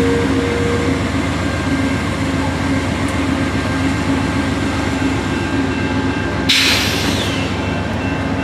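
Amtrak passenger train passing close at speed: Amfleet II stainless-steel coaches rolling by with steady wheel-on-rail noise. A sudden brief hiss about six and a half seconds in.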